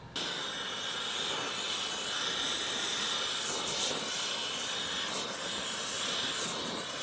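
A steady, even hiss that starts and stops abruptly.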